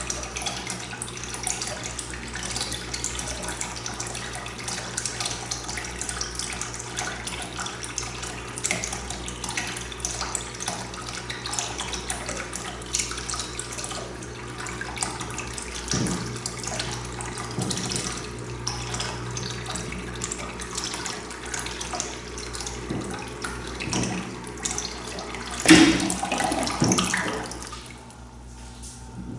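Water running and splashing into a tank, with a steady low hum underneath. A louder knock and splash comes about 26 s in, and the flow stops about two seconds later.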